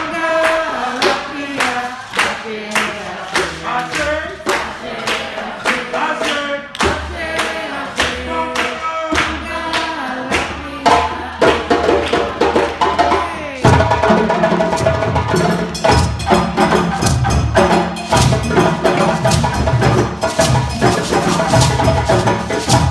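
Djembe ensemble drumming a rhythm together, with dense, rhythmic hand strikes. About 14 seconds in, deeper drums come in and the playing gets louder and fuller.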